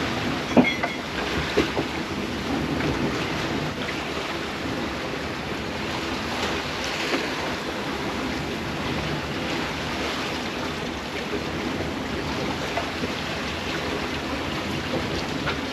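Wind and sea rushing past a sailboat under way, with wind buffeting the microphone; a couple of sharp knocks in the first two seconds.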